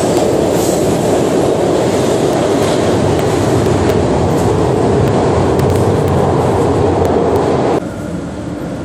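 Subway train running through the station: a loud, steady rumble with faint clattering, which drops off sharply near the end.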